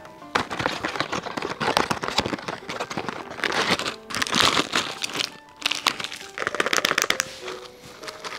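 Foil inner wrapper of a box of Astor wafer sticks crinkling and crackling in several bursts as it is pulled out, handled and opened, dying down near the end.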